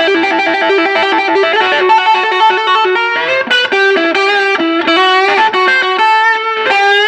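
Electric guitar, a Fender American Special Stratocaster with hot-rail style pickups, played through a Mooer Solo distortion pedal at maximum distortion into a Bugera V22 tube amp, with a Mooer Noise Killer noise gate engaged. It plays a lead line of sustained single notes, with some notes bent upward near the end.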